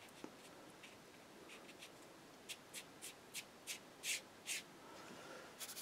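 Paintbrush strokes on watercolour paper: a faint run of about seven short, scratchy strokes, a few every second.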